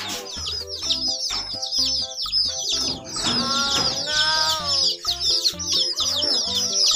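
A group of chicks peeping: a dense stream of short, high, falling cheeps, with a longer, lower call that rises and falls about three seconds in. Background music plays underneath.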